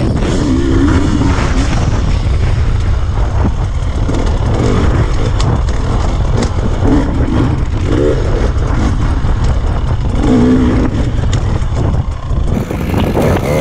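KTM 300 EXC TPI two-stroke enduro engine revving up and down repeatedly as the bike is ridden, over a constant low rumble.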